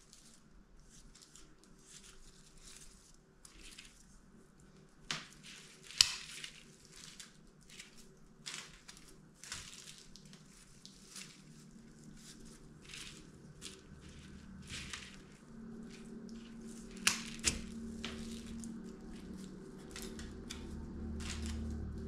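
Hands handling craft materials: a run of short rustles and crinkles, with sharp snaps about six seconds in and twice near seventeen seconds. A steady low hum comes in during the second half.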